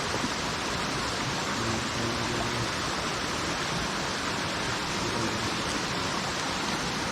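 Mountain stream rushing steadily beside the campsite, a constant even water noise.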